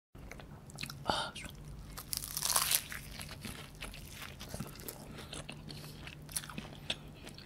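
Biting into the flaky puff-pastry crust of a beef Wellington. There is a small crunch about a second in and a louder crackling crunch around two and a half seconds in, followed by close-up chewing with many small clicks.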